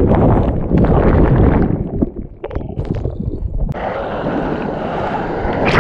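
Shore-break surf churning and water rushing over a camera held in the waves: a loud, choppy low rumble with splashes. A little under four seconds in it turns to a steadier, brighter hiss of rushing water and wind.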